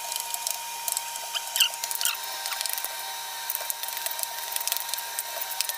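Hands squishing and working moist grated cassava dough in a stainless steel bowl, making a dense run of small wet clicks and crackles with a few short squeaks. A steady faint high whine runs underneath.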